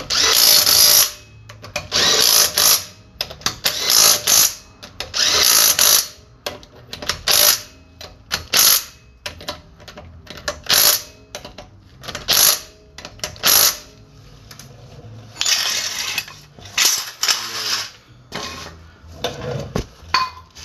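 A low-powered impact wrench hammering in about a dozen short bursts, each under a second, driving the lug nuts on to seat the wheel against the hub.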